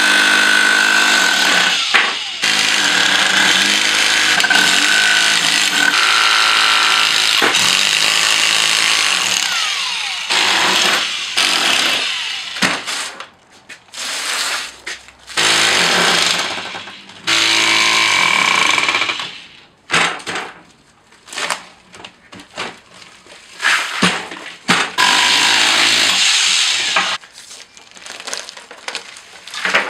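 Power chisel hammer driving a chisel bit into a concrete block to break it apart. It hammers steadily for about twelve seconds, then in shorter bursts with pauses between them.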